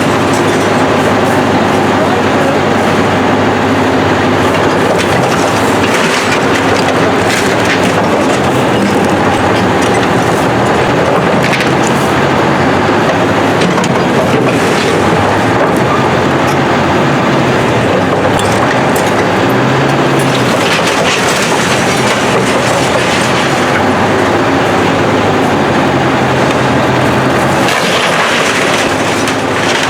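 Heavy demolition machine working: its engine runs steadily, rising and falling in pitch, with scattered sharp cracks and crunches of the building being broken up.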